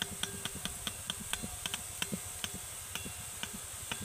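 Gram-flour batter dripping through a perforated ladle into hot oil: a steady sizzle with a quick run of light ticks, several a second, as the drops hit the oil.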